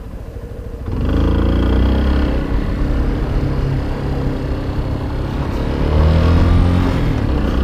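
Motorcycle engine accelerating with rising pitch, pulling away about a second in and speeding up again near six seconds, over a steady low rumble.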